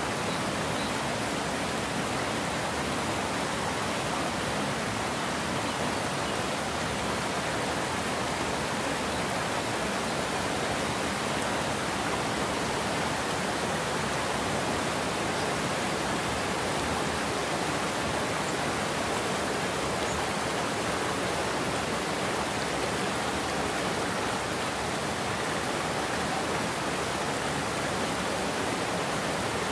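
Water spilling over a low concrete weir into a churning pool: a steady rushing noise that stays even throughout.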